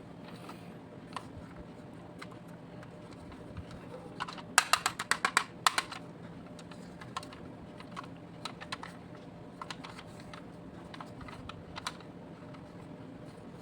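Scattered light clicks and taps of small toys being handled, with a quick run of about a dozen clicks about four and a half seconds in.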